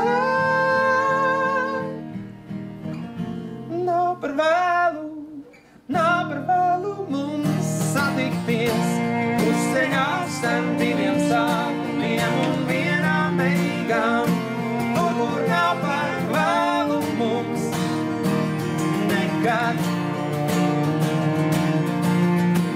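Live acoustic trio of two steel-string acoustic guitars and a cello, with a male voice holding a sung note at the start. The music thins out and almost stops about five seconds in, then the guitars strum on with the cello playing a melody over them.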